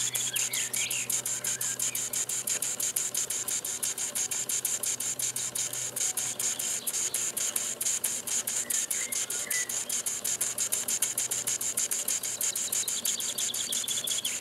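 Mamod live-steam model engine running on the spot: a fast, even chuff of exhaust strokes over a steady steam hiss.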